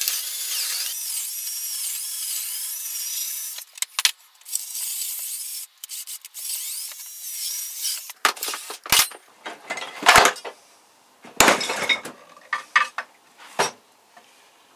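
A part is scraped and rubbed into place on a wooden jig, making a high squeaking scrape for about four seconds and again briefly a little later. This is followed by a string of sharp knocks and clatters as pieces are handled on the workbench.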